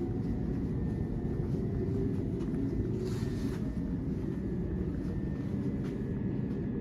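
Steady low rumble inside a Southern passenger train carriage, with a faint steady whine above it.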